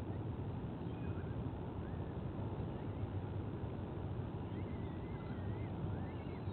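Steady low rumble of outdoor background noise at the nest camera's microphone, with a few faint thin bird whistles and chirps over it, one wavering whistle lasting about a second a little past the middle.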